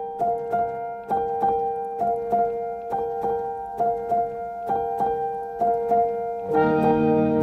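Background music: a keyboard melody of repeated struck notes over a held tone, with fuller, lower chords coming in near the end.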